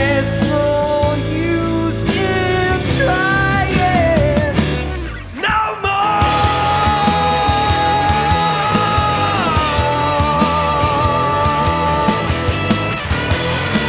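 Rock band playing an instrumental passage: a lead electric guitar bends and holds notes with vibrato over bass and drums. The sound drops out briefly about five seconds in, then the guitar returns with long sustained notes.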